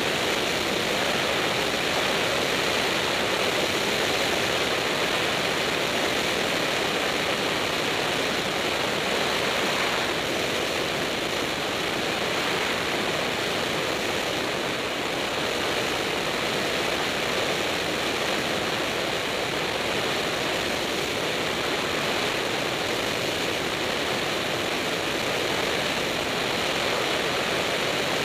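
Light propeller airplane in flight: a steady rush of wind and engine and propeller noise, heard from outside the cabin.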